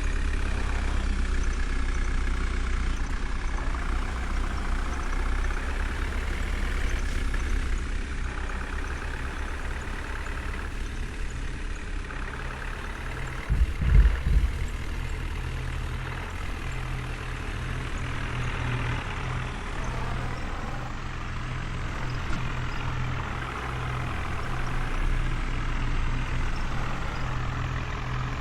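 Diesel engines of a backhoe loader and tractors running steadily, with one short loud thud about halfway through.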